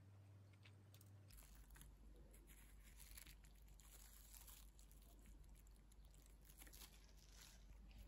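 Very faint biting and chewing of a sandwich of soft bread with salad leaves and sunflower seeds, heard as scattered soft crunches.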